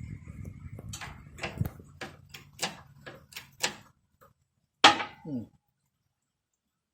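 Axle bearing being pressed onto the axle shaft: a run of sharp clicks or cracks, about three a second, then one loud bang with a short falling ring after it.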